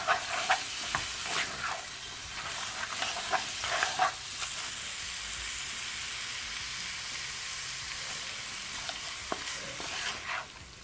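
Curry-seasoned goat meat sizzling in oil in a hot nonstick pan while a spatula stirs it. Scraping strokes of the spatula come through the first four seconds and again near the end.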